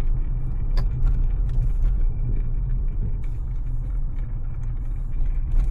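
Steady low road rumble and tyre noise inside the cabin of a Tata Punch EV, an electric car with no engine note, as it climbs a winding mountain road. A single sharp click comes about a second in.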